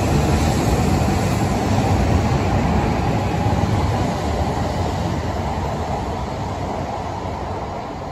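E5 and E6 series Shinkansen coupled as one train, pulling out past the platform. A steady rumble of the passing cars fades over the last few seconds as the tail draws away.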